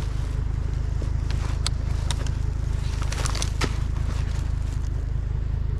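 Footsteps and scattered clicks and rustles of debris being stepped through and moved, over a steady low rumble.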